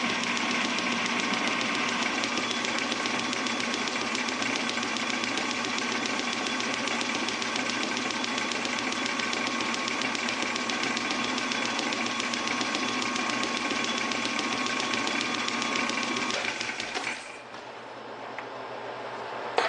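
Metal lathe running, turning a metal bar between the chuck and tailstock centre with the cutting tool on the work: a steady mechanical running sound with a few faint steady tones. About seventeen seconds in the sound drops off sharply as the lathe is stopped, leaving a low hum.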